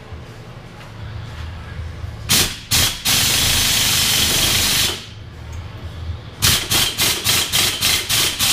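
Impact wrench on the pinion nut of a Chevy 8.6 rear end: two short bursts, then a steady hissing run of about two seconds, then a string of quick trigger bursts, about three a second, near the end. It is running the nut down on the pinion flange to crush the crush sleeve and preload the pinion bearings.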